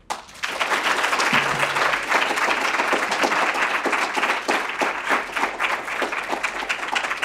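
An audience applauding: dense, steady clapping that starts a moment in.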